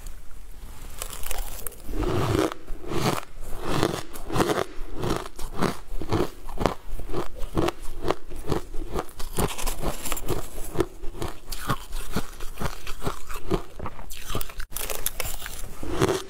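Close-up crunching and chewing of frost-covered green ice, bite after bite at about two to three crunches a second.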